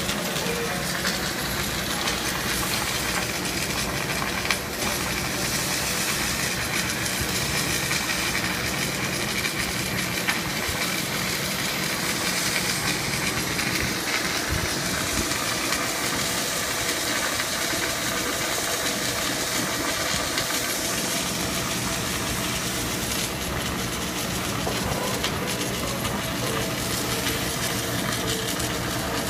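Steady hiss and hum of a twin-wire submerged arc welding rig running on a column-and-boom, its two heads drawing over 500 amps each, with a couple of faint clicks.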